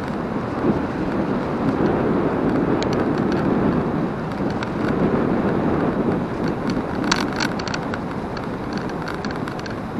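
A vehicle in motion on an asphalt road: steady tyre and wind noise with no distinct engine note. It swells slightly through the middle, and a few faint clicks come about seven seconds in.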